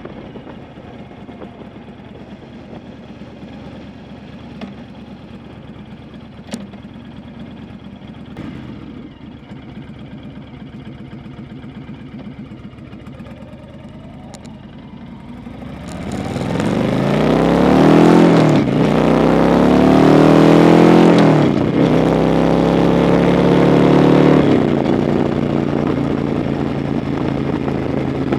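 Honda Fury's V-twin motorcycle engine and exhaust, running low and steady, then about two thirds of the way in opening up: the revs climb, drop at two upshifts, and settle into a steady loud cruise.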